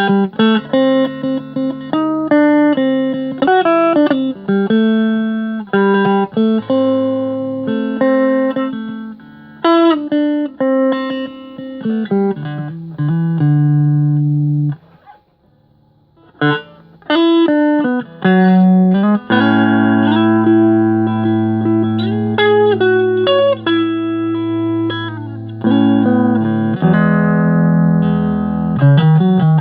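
Agile Telecaster-copy electric guitar being played: a run of picked single notes and chords with a few string bends, and a short pause about halfway through.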